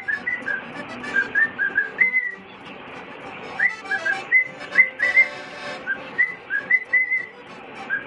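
Male cockatiel whistling a string of short rising and falling notes, breaking off a little after two seconds in and starting again about a second later.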